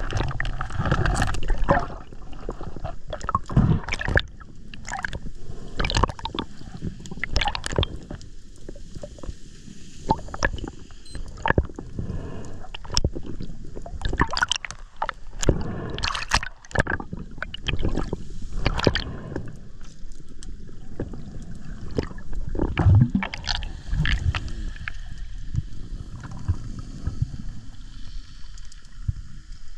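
Underwater sound picked up through an action camera's waterproof housing: a constant water rush with many irregular clicks and knocks from the freediver's movement and gear during a descent.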